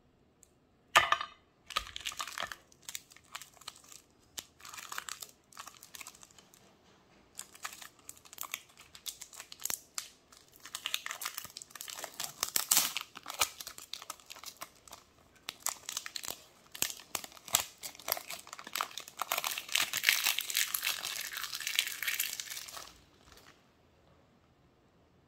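A foil-lined plastic Cadbury Dairy Milk chocolate wrapper being crinkled and torn open by hand, in irregular bursts of crackling. The crinkling stops suddenly near the end. There is a single sharp click about a second in.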